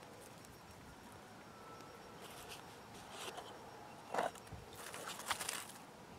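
Dry curled wood shavings rustling and crunching as they are gathered by hand and pushed onto a small flame. A few light crackles come from about two seconds in, with the loudest crunches around four seconds and again near five seconds.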